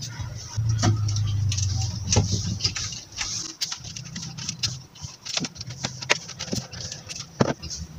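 Broom bristles scratching and scraping against wood in quick, uneven strokes, sweeping out a corner where termites have been eating the wood. A low hum runs underneath, loudest in the first couple of seconds.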